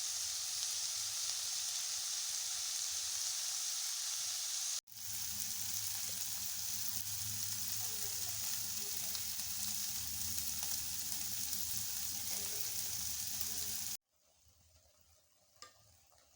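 Minced meat sizzling in a frying pan, a steady hiss. It breaks off sharply for an instant just before 5 seconds and resumes, then stops abruptly about 14 seconds in, leaving a faint background with a single click near the end.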